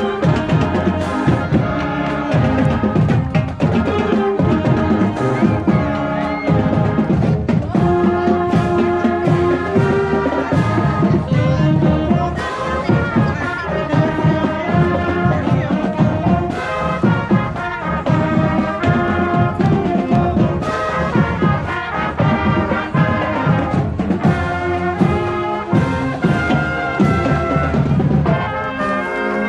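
A marching band playing: brass (trumpets and trombones) sounding held notes of a tune over steady drum beats.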